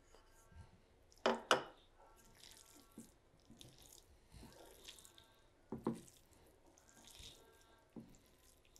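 A hand squishing and kneading marinated fish pieces with flour, rice flour and chopped coriander in a bowl: soft, irregular wet squelches, louder about a second and a half in and again near six seconds.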